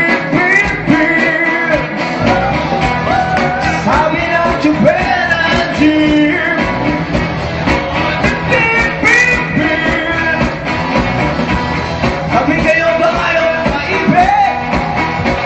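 Rock song played live: a voice singing over a full rock band.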